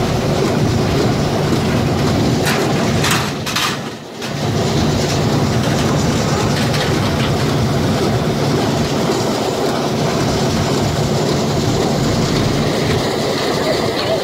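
Welger small square baler working in the field with a Ritchie bale accumulator rattling along behind it: a steady machine hum under continuous metal clatter. A few sharp clanks come just before a brief dip in loudness about four seconds in.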